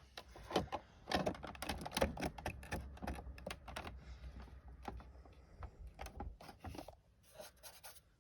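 Irregular clicks, taps and rattles of hard plastic being handled, like a toy washing machine's lid and parts, over a low hum that stops about seven seconds in.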